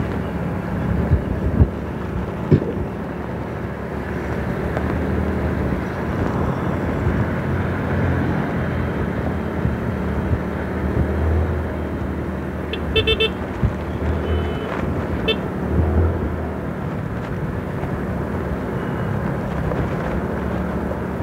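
Steady vehicle engine and road noise from riding along a street, with a couple of short horn toots a little past the middle.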